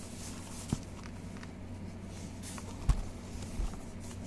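A keyboard and its packaging being handled: soft rustling with a few dull knocks, the loudest about three seconds in, as the keyboard is lifted and set down.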